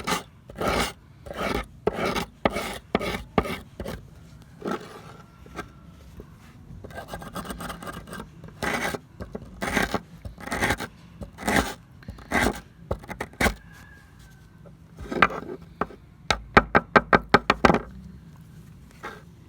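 Repeated rasping strokes of hand abrasive work on the metal of an old plier, at about two strokes a second, with a quicker run of short strokes near the end.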